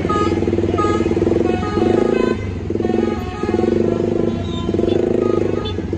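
A bus's basuri (telolet) musical horn playing a tune as a string of buzzy blasts, each up to about a second and a half long, with short gaps and changes of pitch between them, over the steady running of the bus engine.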